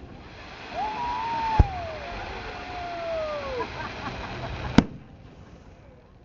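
Fireworks going off, with two sharp bangs, one about a second and a half in and one near five seconds, over a steady hiss. Between the bangs a woman gives one long whooing call that falls slowly in pitch.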